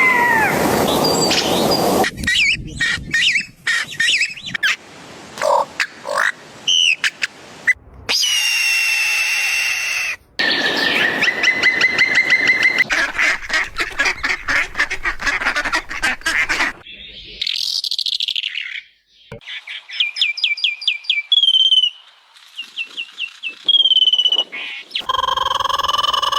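A string of different bird and animal calls, each clip cut off abruptly and replaced by the next. It includes bird calls of the duck and fowl kind and a long run of rapid repeated pulses in the middle.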